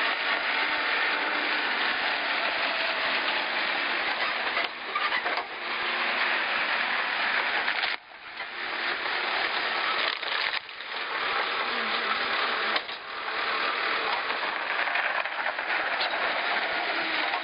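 Diesel engine of a Sitemaster backhoe loader running hard close by, with a dense mechanical rattle as the machine works its front bucket into a rubble pile. The sound drops away briefly about four times.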